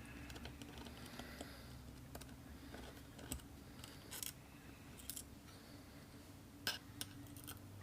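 Faint, scattered small clicks and taps of a screwdriver and tiny screws being handled while the two small screws holding the op amp card of a portable DAC are undone, over a faint low hum; the clearest click comes near the end.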